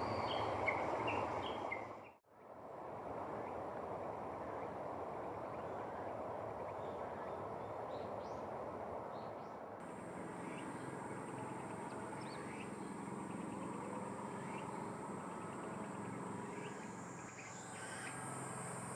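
Outdoor ambience: a steady rushing background with scattered short bird chirps. The sound drops out briefly about two seconds in, and a high thin hiss joins about halfway through.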